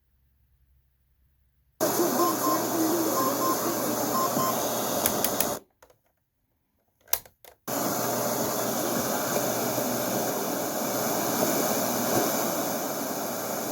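Sony ICF-C30W clock radio's speaker switching on about two seconds in with loud, steady hissing static. It cuts out for about two seconds midway, with a short burst and clicks, then the static hiss resumes.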